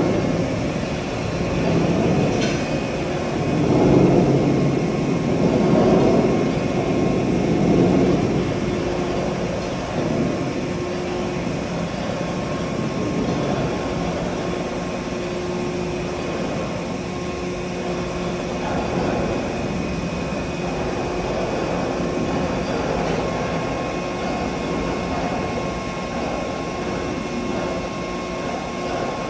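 Hydraulic power unit of a 150-ton Kongo forging press running as the press slide lowers slowly, a steady mechanical hum with a held higher tone. Louder, uneven rushing noise swells over the first ten seconds or so, then settles to a steady level.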